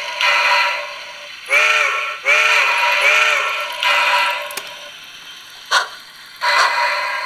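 Bachmann Sound Value 2-6-0 Mogul model's onboard sound decoder playing slow steam chuffs, one every second or so, through the locomotive's small speaker. About one and a half seconds in, the steam whistle gives three short toots, each bending up and then down in pitch. A short sharp click comes near the end.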